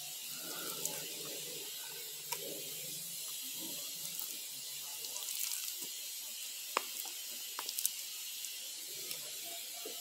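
Steady hiss with a few sharp clicks and soft handling noises as slices of raw beef are laid into a metal pot.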